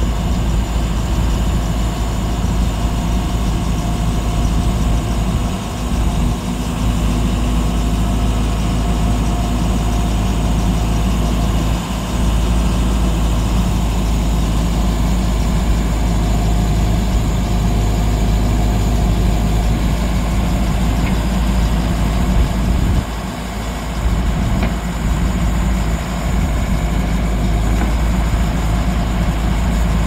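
2018 John Deere 410L backhoe loader's four-cylinder diesel engine running steadily while the backhoe boom and bucket are worked through their range on the hydraulics. The sound dips briefly twice, about twelve and twenty-three seconds in.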